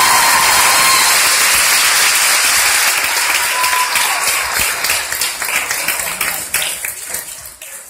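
Crowd applauding and cheering, with high shrieks riding on top; it thins out to scattered claps and fades near the end.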